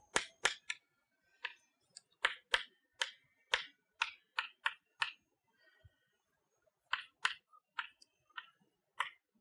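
Chalk tapping and clicking against a chalkboard as symbols are written: a string of short, sharp, irregular taps, with a pause of nearly two seconds about halfway through.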